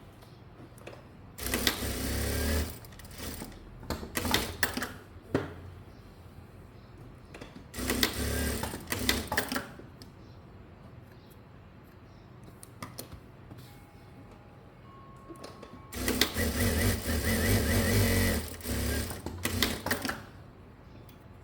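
Electric sewing machine stitching in three short runs, about a second and a half in, about eight seconds in and about sixteen seconds in, the last the longest. Each run is followed by a scatter of sharp clicks.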